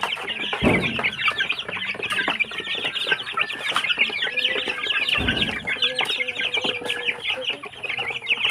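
Young Barred Plymouth Rock chickens and chicks peeping in a constant, rapid chatter while feeding, with a longer, lower call from one bird midway. Two dull thumps come about a second in and again at about five seconds.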